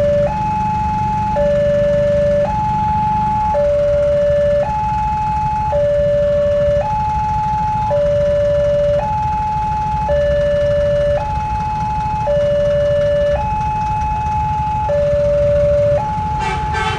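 Electronic railway level-crossing warning alarm sounding a steady two-tone hi-lo signal, each tone held about a second, over a low steady rumble. The signal means the barrier is down for an approaching train.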